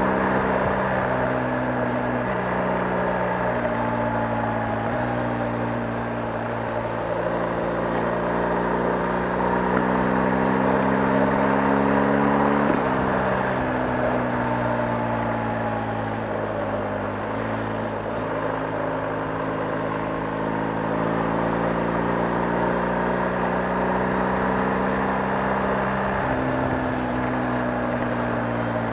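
BMW R 1250 GS's boxer twin engine running under way, its note drifting up slowly and shifting in steps, with one sharp break about halfway through, over a steady rushing noise.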